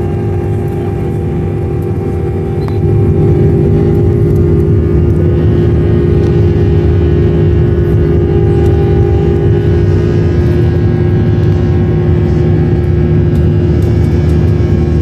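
Airliner's jet engines and airframe during takeoff, heard from inside the passenger cabin: a loud, steady low rumble with a steady droning tone. It grows louder about three seconds in.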